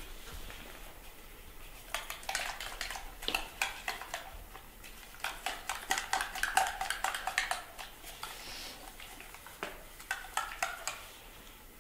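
Small plastic milk feeding bottle being handled and shaken, giving bursts of quick, light clicks and taps.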